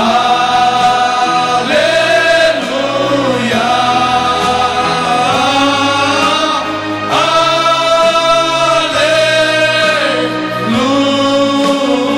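Male gospel vocal group singing together through microphones, long held notes in harmony over a steady instrumental backing.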